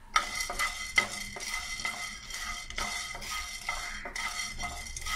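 A wooden spatula stirring and scraping whole black peppercorns as they dry-roast in a nonstick pan, the hard peppercorns clicking and rattling against the pan. Repeated strokes, about two or three a second, with one sharp click about a second in.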